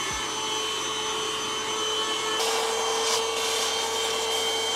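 Handheld vacuum cleaner with a crevice nozzle running steadily as it is worked over the floor. Its tone shifts slightly about halfway through.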